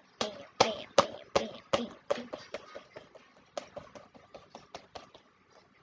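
Sticky squishy toy balls (globbies) slapped and splatted against a hard surface again and again: a quick run of sharp slaps, about two or three a second, getting softer toward the end.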